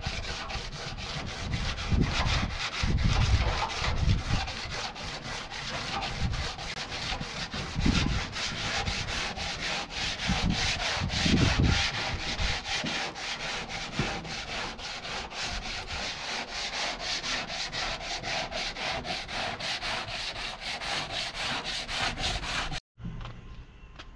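Sandpaper rubbed by hand over the sheet-metal side panel of a truck cab, in quick back-and-forth strokes at about four a second, with a few low bumps. It cuts off suddenly near the end.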